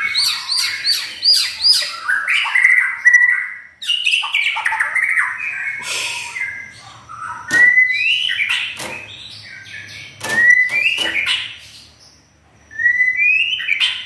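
White-rumped shama singing a varied song of loud whistled phrases. It opens with a quick run of repeated notes, then gives short rising whistles with sharp clicks in between, and pauses briefly near the end.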